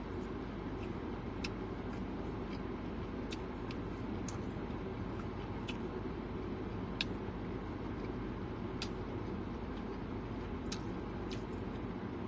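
Steady low hum inside a parked car's cabin, with irregular small clicks and smacks of a person chewing a mouthful of sandwich.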